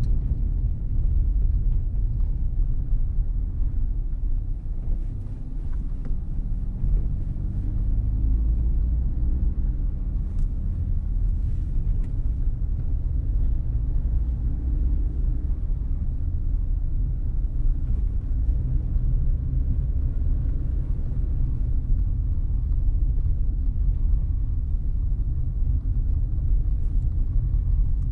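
Steady low rumble of a car driving slowly.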